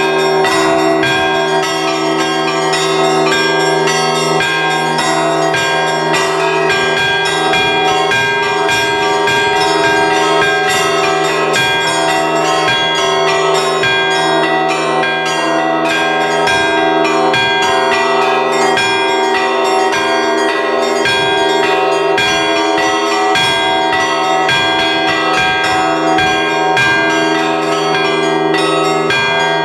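Russian Orthodox church bells rung in a continuous peal (zvon): quick, dense strikes of the smaller bells over the steady hum of the larger ones.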